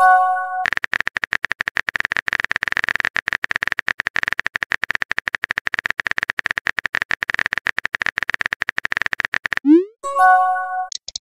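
Chat app sound effects: a short chime as a message arrives, then a long run of rapid keyboard-typing clicks while the next message is typed, then a rising bloop and another chime near the end.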